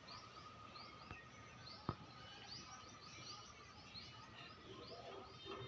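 Small bird chirping: a steady series of short, faint, high chirps, about two to three a second, over low background noise, with one sharp click about two seconds in.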